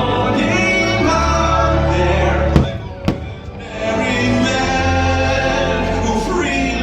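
Orchestral fireworks-show music with singing. About two and a half seconds in the music breaks off, and two sharp firework bangs sound about half a second apart before the music resumes.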